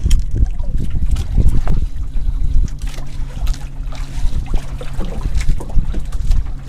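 Wind buffeting the microphone and water sloshing against a small fishing boat at sea, with a steady low hum underneath and scattered small knocks and clicks.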